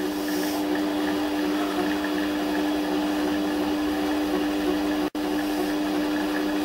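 Güde GMD 400 mini metal lathe running at low spindle speed: a steady motor hum at one constant pitch. The sound drops out for a split second about five seconds in.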